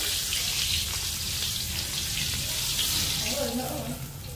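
A whole frog frying in oil in a wok, sizzling and crackling steadily.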